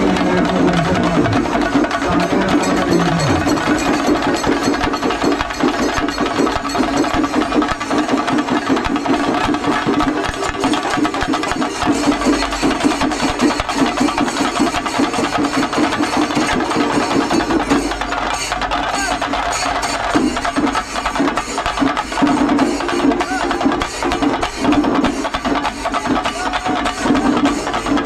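Shinkarimelam percussion: chenda drums beaten in a fast, unbroken roll with hand cymbals. A held low tone sounds under the drums at the start and again near the end.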